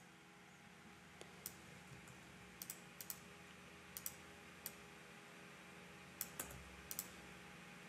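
Faint, scattered clicks of a computer mouse and keyboard, about a dozen single clicks spread through, over a quiet steady hum of room tone.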